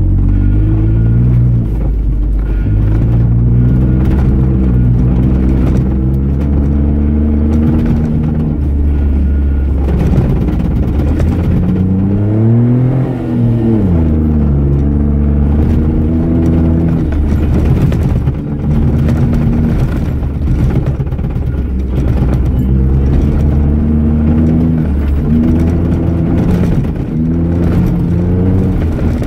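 Jeep Wrangler JK's V6 engine driving hard on a dirt track, its pitch climbing and falling back several times as it revs and shifts, with the highest rev about 13 seconds in.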